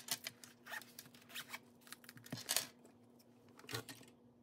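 A series of short, scratchy rustles and clicks of things being handled, irregularly spaced and loudest a little past halfway, over a faint steady hum.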